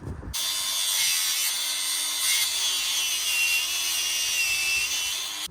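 Bauer 20V brushless cordless angle grinder cutting steel with a cut-off wheel: a loud, hissing grind over a high whine, starting abruptly a moment in, the whine wavering and dipping slightly as the disc bites into the metal.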